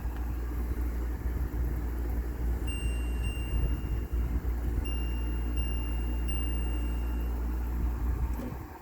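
Tempia window air conditioner running: a steady low hum, with a thin high tone that comes and goes in the middle. The sound drops away sharply near the end.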